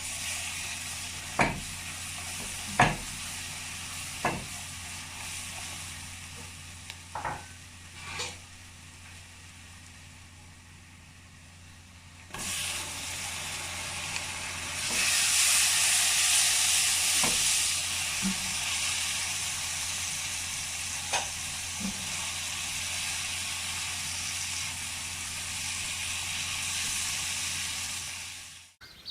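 Food frying in a hot pot, sizzling steadily, with a spoon knocking against the pot several times in the first eight seconds and a few more times later. The sizzle gets louder about twelve seconds in and again a few seconds after, over a steady low hum.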